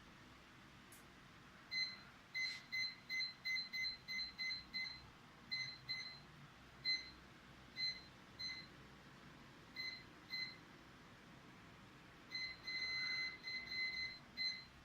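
A string of short electronic beeps on one steady high pitch, irregularly spaced, several in quick succession, then scattered ones, then a longer near-continuous run of beeping near the end.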